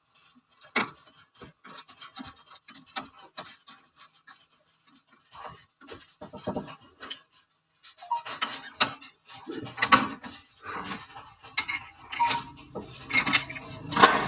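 Metal tools and parts being handled: scattered light clinks, taps and scrapes of metal on metal. These are sparse at first and come thicker and louder from about halfway through.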